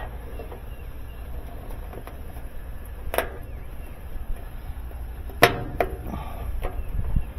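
A few sharp clicks and taps of hands working a flexible strip into the plastic rim of a washing machine's top opening, the loudest about five and a half seconds in, over a steady low wind rumble on the microphone.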